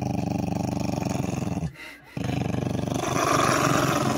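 A Maltese growling at length. The growl breaks off briefly a little before halfway, then starts again. It is a warning growl: the dog is guarding its plush toy bone from a reaching hand.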